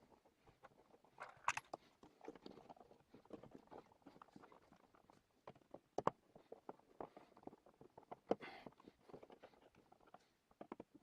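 Faint, irregular clicks, knocks and rustles of a dimmer switch and its wiring being pushed and fitted into a wall electrical box, with a few sharper clicks about a second and a half, six and eight seconds in.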